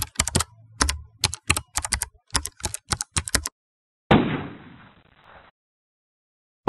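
Typing sound effect: a quick, irregular run of key clacks for about three and a half seconds, then one heavier hit about four seconds in with a rush of noise that fades away over a second and a half.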